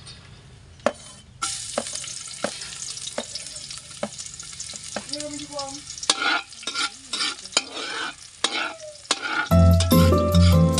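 Chopped garlic sizzling in a metal wok. The sizzle jumps up sharply about a second and a half in, and the metal ladle scrapes and clinks against the wok as the garlic is stirred. Background music comes in near the end.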